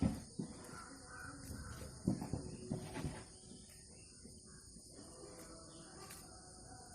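Steady high-pitched insect chorus, with a few short bird chirps and several dull knocks in the first three seconds.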